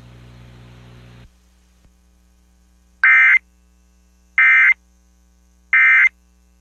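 Emergency Alert System end-of-message code: three short, evenly spaced bursts of buzzing digital data tones, about a second and a half apart, signalling the end of the alert. A faint hiss stops about a second in.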